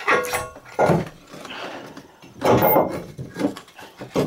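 Exhaust manifold being worked out of the engine bay by hand, knocking against surrounding parts: a series of thunks and clanks, the first with a short metallic ring.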